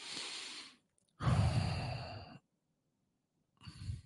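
A man breathing in close to the microphone, then letting out a long, heavy sigh about a second in.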